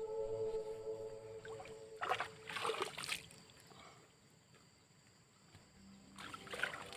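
Background music of long sustained drone-like tones. About two seconds in and again near the end, it is broken by short bursts of noise.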